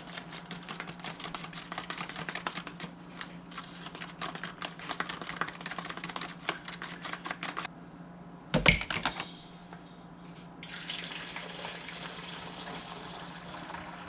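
Water and milk replacer being mixed for a piglet's bottle: sloshing and clattering, one loud knock about nine seconds in, then water running from a tap.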